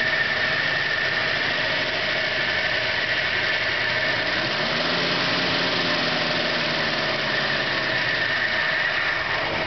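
1968 Ford Mustang California Special's V8 running steadily after years of sitting, with a steady high-pitched whine over the engine note.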